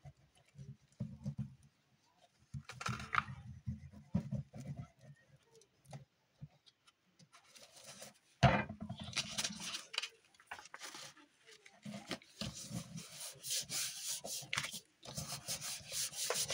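Paper and card being handled and rubbed down by hand: several spells of scratchy rubbing mixed with dull handling bumps, and one sharp knock about eight seconds in.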